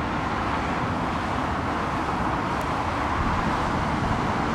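Steady road traffic noise: an even hum of passing cars that neither rises nor falls.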